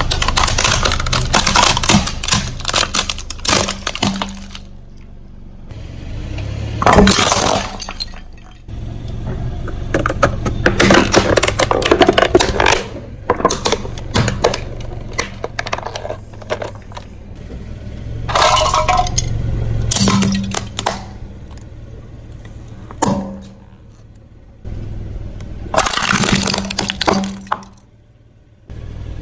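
Car tire rolling over and crushing brittle objects: repeated bursts of cracking, crunching and clinking, like glass or hard plastic breaking, separated by short pauses.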